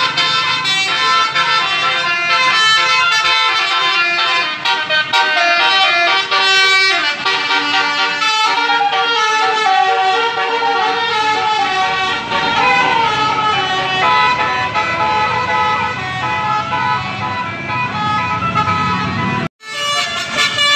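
Several basuri telolet horns, multi-trumpet melody horns, sounding tunes that overlap and answer one another. The sound breaks off for a moment near the end, then the horns continue.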